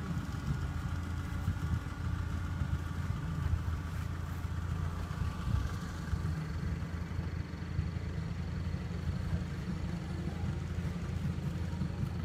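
Land Rover Defender's turbocharged 2.9 engine idling steadily at a distance.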